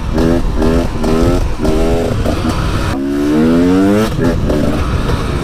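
Dirt bike engine accelerating hard, its pitch climbing and breaking off about four times as the rider works through the throttle and gears; the longest rise comes about three seconds in. Wind rumbles on the microphone throughout.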